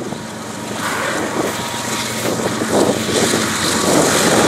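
Doublestack freight train rolling past with steady wheel and rail noise, joined by the mid-train remote GE ES44AC diesel locomotive's engine, growing louder from about a second in as the unit comes underneath.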